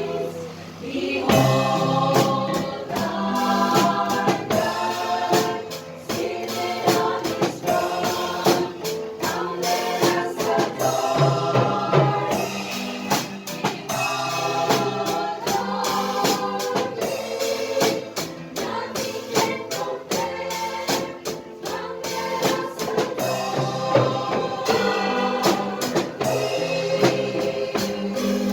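Gospel music: a choir singing over a drum kit playing a steady beat, after a brief dip about a second in.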